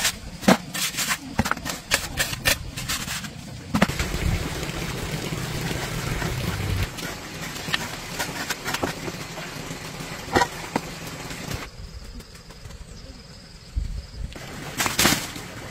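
Metal shovel scraping and knocking as it scoops leftover cement-and-sand mortar off a packed-earth floor. A quick run of sharp scrapes and clinks comes in the first few seconds, then scattered ones.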